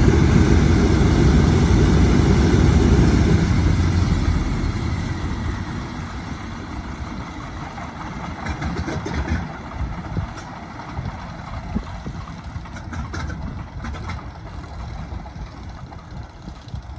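The Wright Cyclone nine-cylinder radial engines of a Boeing B-17G Flying Fortress running at idle with a deep, steady rumble. About four seconds in the sound falls away as the engines wind down, leaving a much quieter rumble with a few scattered clicks.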